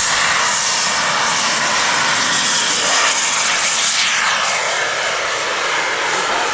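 Turbine engine of a radio-controlled model jet at high power on its takeoff run and climb-out: a loud, steady rushing whine whose pitch drops about three to four seconds in as the jet passes by.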